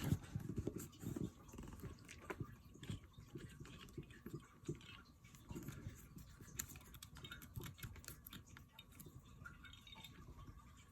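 Faint handling noise of a Streamlight weapon light being fitted onto a pistol's accessory rail: scattered small clicks, taps and scrapes of plastic and metal, a little louder near the start.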